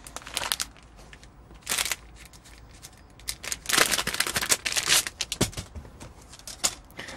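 Foil anti-static bag crinkling and crackling as it is handled and pulled open, in several short irregular bursts with quieter gaps between.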